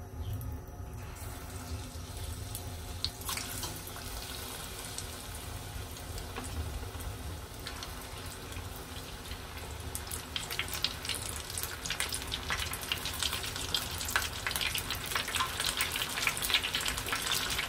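Hot cooking oil sizzling and bubbling as battered squid pieces for calamari are deep-fried in a small pot. The crackling grows denser and louder in the second half as more pieces go into the oil.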